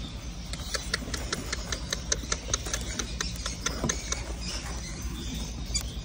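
Albino lovebird chicks making a rapid series of short, high squeaks, about five a second. The squeaks fade after about four seconds.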